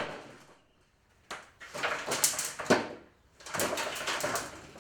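Blows on a plastic box fan: a sharp hit at the start and another about a second in, then stretches of plastic parts clattering and scraping, with a further sharp knock near the middle.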